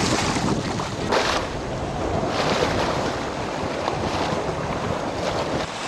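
Wind buffeting the microphone over the wash of water along a sailing yacht's hull, swelling in gusts.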